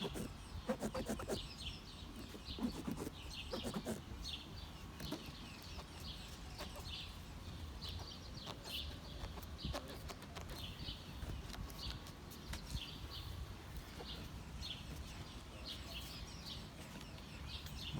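Rubber door seals of a BMW F30 squeaking against the door frame: short, high, chirp-like squeaks repeated irregularly over and over.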